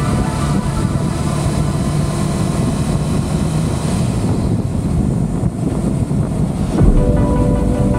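Wind noise on the microphone over a Honda CBR500R's parallel-twin engine at road speed, heard from the rider's seat. A short thump comes about seven seconds in, and background music comes back in just after it.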